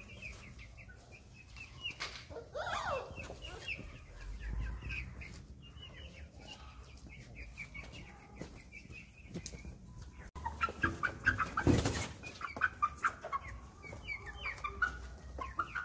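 Hens clucking with many short calls, and a brief flurry of flapping wings about three-quarters of the way through.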